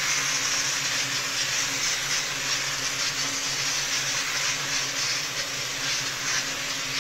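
Bissell SteamShot Deluxe handheld steam cleaner releasing a steady hiss of steam through its cloth-covered fabric attachment against a curtain, with a low hum beneath.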